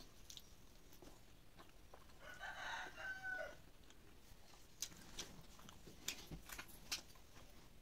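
A rooster crows once, faintly: a single call of about a second and a half, starting about two seconds in. Later come a few faint, sharp clicks of chewing.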